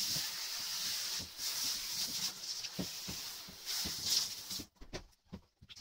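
Handheld shower head spraying water to rinse a bathtub and bathroom walls: a steady hiss that cuts off near the end.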